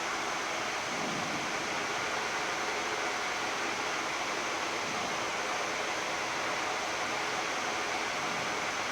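Steady hiss of a Boeing 787-10 flight deck during taxi, mostly air-conditioning and equipment-cooling airflow, even and unchanging throughout.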